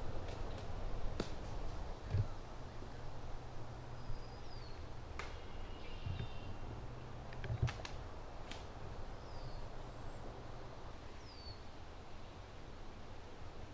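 Outdoor woodland ambience: several short bird chirps that fall in pitch, over a steady low rumble, with a few sharp clicks scattered through.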